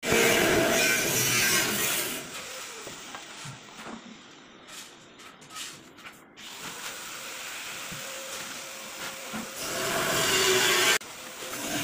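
Hand tiling work: rubbing and scraping against ceramic wall tiles as a tile is pressed and worked into place, in uneven strokes, with a few light knocks in the middle.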